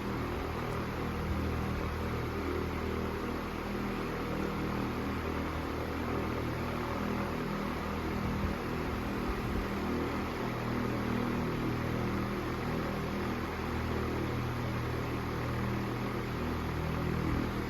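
Vintage Fresh'nd Aire 26-inch table fan, Model 2600, running steadily on its third speed: a low motor hum under an even rush of air from the blades.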